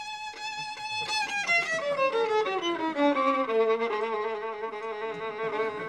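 Solo violin playing: a held, wavering note, then a quick run of notes stepping down in pitch about a second and a half in, settling into lower held notes.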